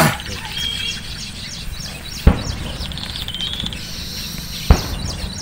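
Small birds chirping in quick, repeated high notes, broken by three sharp knocks: one at the start, one a little over two seconds in and one near the end.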